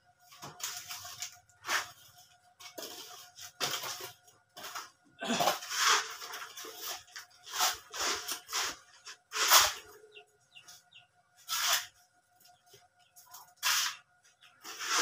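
Masonry trowel scraping and clacking against concrete hollow blocks and mortar as a block wall is laid, in irregular short strokes about once a second.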